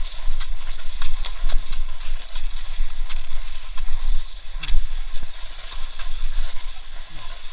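Cross-country skis sliding and scraping on an icy, crusted track, with frequent clicks from pole plants and gear, under heavy wind rumble on the microphone.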